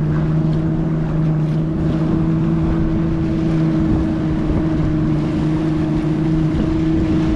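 Tour motorboat's engine running at a steady speed, a constant low hum, over the rush of wind and water.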